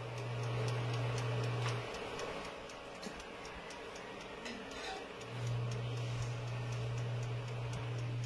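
Electric countertop oven running, ticking steadily over a low hum. The hum drops out about two seconds in and comes back about five seconds in.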